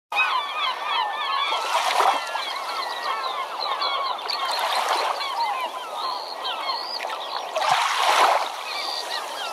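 A flock of birds calling continuously in many short overlapping chirps and honks, with three surges of water noise as of waves washing in, about three seconds apart.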